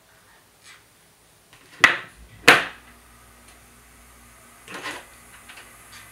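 Two sharp hard clacks about two seconds in, half a second apart, then a softer cluster of clicks near the five-second mark: handling noise from a hair flat iron being put down and picked up again.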